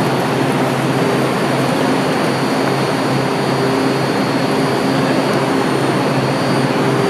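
Washington Metro Red Line subway train pulling into an underground station and slowing alongside the platform: a steady, loud noise of wheels on rail and traction motors with a faint high whine over it, heard in a vaulted concrete station.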